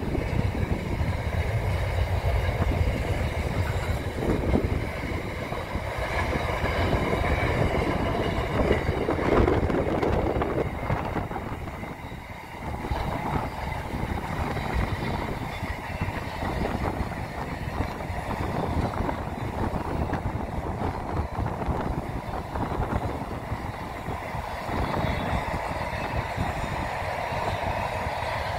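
Container wagons of a long intermodal freight train rolling past, their wheels rumbling and clattering steadily on the rails, with a brief dip in level about twelve seconds in.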